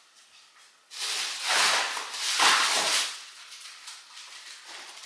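Rustling, shuffling noise in several swells from about a second in, dying away after about three seconds.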